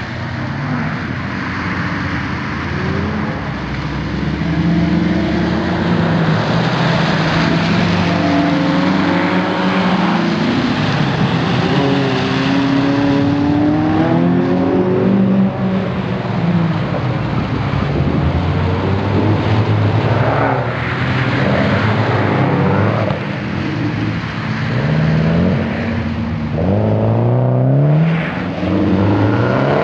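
Two track cars lapping a wet circuit, engines revving up and down through gear changes as they pass, one of them a SEAT Arosa fitted with a motorcycle engine. Near the end comes a quick series of rising revs as a car passes close.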